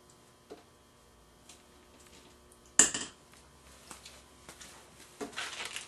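Kitchen handling sounds over quiet room tone: one sharp knock about three seconds in, then a few light clicks and a short rustle near the end.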